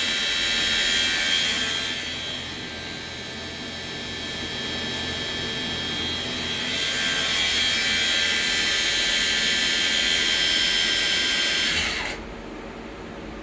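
Live tool spindle of a 2016 Samsung SL2500BY CNC lathe spinning free at about 5,000 RPM, a high-pitched whine of several steady tones. The whine fades for a few seconds, comes back, and drops away about twelve seconds in.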